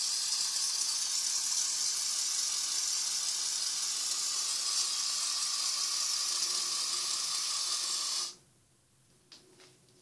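Aerosol smoke-detector test spray hissing in one long continuous burst at a smoke detector, cutting off sharply about eight seconds in. The detector gives no alarm in response.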